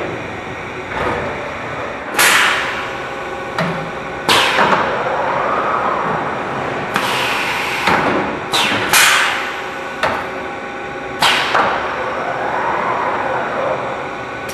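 Automated sheet-metal production-line machinery for oven cavities running. A steady machine hum is broken by about six sharp hissing bursts and knocks, and a tone rises and falls twice.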